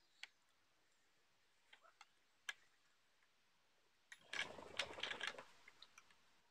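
Near silence with a few faint, sharp ticks, then a short burst of rustling, scraping noise a little past the middle that lasts about a second.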